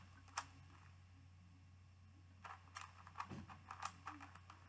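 Megaminx puzzle being turned by hand: one sharp plastic click about half a second in, then a quick run of clicks and turns from about halfway through. A steady low hum sits underneath.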